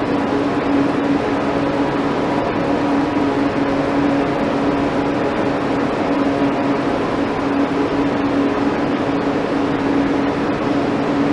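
A steady machine hum with one constant low-mid tone over an even hiss, unchanging throughout.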